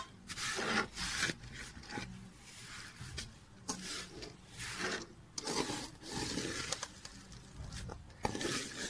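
Steel ladle stirring and scraping broken vermicelli around a large metal pot of hot ghee, a rough scrape with each stroke, repeated about one or two times a second. This is the vermicelli being roasted in ghee.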